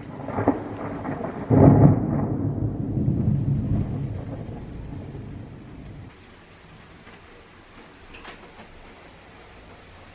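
Summer thunderstorm: a short crack, then a loud thunderclap about a second and a half in that rumbles and fades away over about four seconds, over steady rain.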